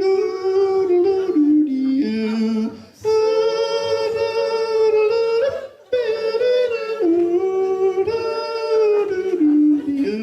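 A man yodeling a wordless cowboy cattle call, holding long notes and breaking abruptly between high and low pitches several times.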